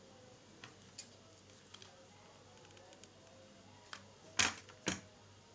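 Small light clicks and taps of cut plastic pieces and tools being handled on a tabletop, then two sharper knocks about half a second apart near the end.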